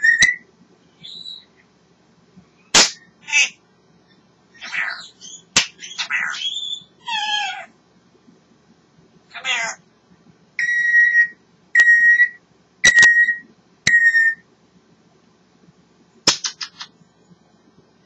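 African grey parrot vocalizing: a string of varied squawks, gliding calls and sharp clicks. In the middle come four even whistled notes on one pitch, and near the end a quick run of clicks.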